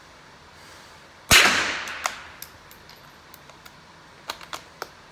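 A single rifle shot from a wooden-stocked target rifle, a sharp crack about a second in that rings briefly off the range walls. A string of light clicks and knocks follows as the rifle is handled, with three sharper clicks near the end.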